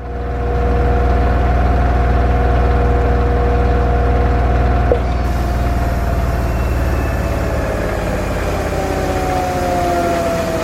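Toshiba TW-180VE(C) washing machine running: a steady low motor hum with whining tones over it, which start to slide slowly in pitch about seven seconds in.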